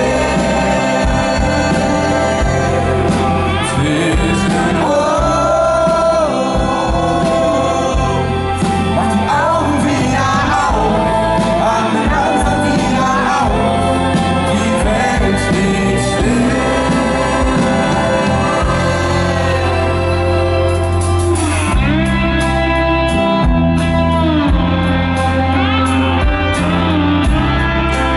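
Live unplugged band playing, with acoustic guitar and a sung melody line over it, recorded in a large arena. About 21 seconds in, drums join with a steady beat.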